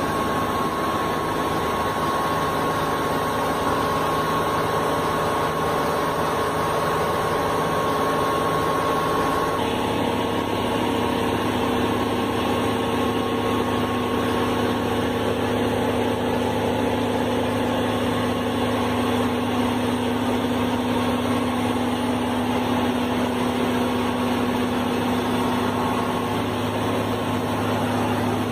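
Heavy tanker truck's diesel engine running steadily, its tone shifting about ten seconds in.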